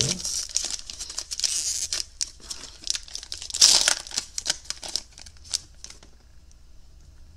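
Foil trading-card pack wrapper being torn open and crinkled by hand, loudest about three and a half seconds in. It falls quieter after about six seconds, leaving a few small clicks.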